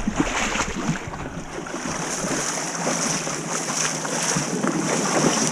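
Steady rush of wind and water, with wind noise on the microphone.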